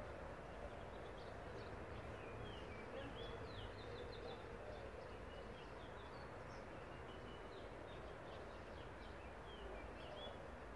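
Small birds chirping and twittering, with many short quick notes that slide up or down, scattered all through, over a steady low hum of distant city noise.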